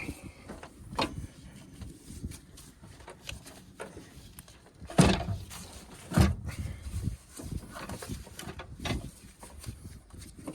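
Scattered knocks and clunks of tools and parts being handled in a car's engine bay, the two loudest about five and six seconds in.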